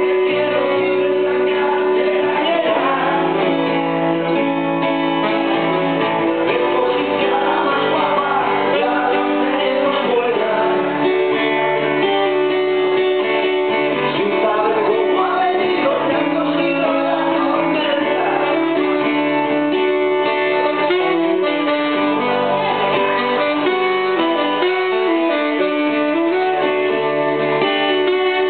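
Live acoustic guitar and saxophone duo playing a song: a strummed acoustic guitar under a moving melody line.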